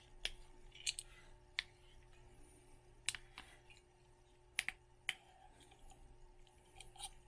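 Faint, irregular clicks and light scrapes from a 12-gauge hand roll crimp tool being turned against a shotshell hull.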